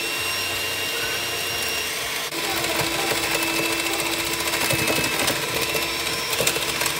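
Electric hand mixer running with a steady motor whine, its beaters working butter and sugar in a stainless steel bowl. The hum shifts slightly about two seconds in.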